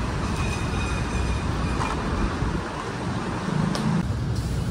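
Steady low rumble of busy street background noise, with a short tick about four seconds in.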